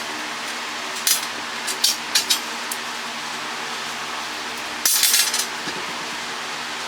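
Small metal parts clinking and rattling as the bolts and nuts of a water pump are handled: a few sharp clicks in the first three seconds, then a longer rattle about five seconds in.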